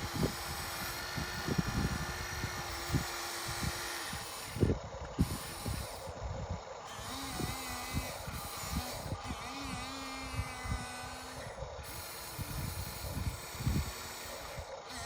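RC excavator's motor and hydraulic pump running with a steady whine. The whine breaks off about four seconds in and comes back lower in pitch in short spells. Scattered knocks and scrapes of the bucket working dirt come throughout.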